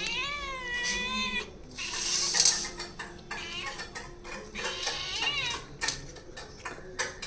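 A cat meowing: a long meow in the first second and a half and another about five seconds in, with short clicks and clatter of a dish or bowl between them.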